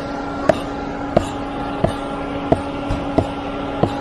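Even hammer taps on the concrete pump line, about one every two-thirds of a second, tapping along it by ear to find where a concrete plug has blocked the line. Under them the pump truck runs with a steady hum.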